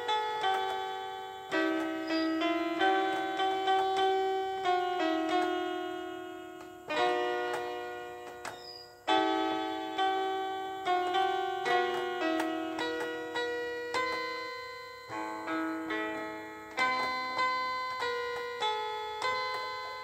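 Small electronic keyboard playing a slow melody over chords in a piano voice, each note struck sharply and then fading away.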